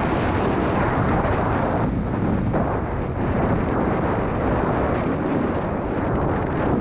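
Steady rush of wind over a GoPro's microphone mixed with the hiss of a snowboard riding through deep powder snow.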